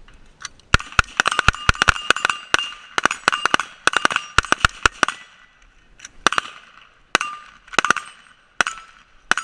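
Rifle gunfire from several shooters on a firing line during a reload drill. A rapid run of overlapping shots starts about a second in and thins out to scattered single shots after about five seconds, each shot followed by a short ringing tone.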